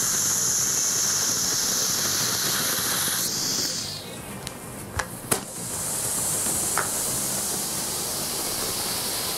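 R-Candy sugar rocket fuel burning inside a 3D-printed rocket slug with no nozzle or restriction: a loud steady hiss that dies away about three and a half seconds in, a few sharp pops around five seconds, then another steady burning hiss.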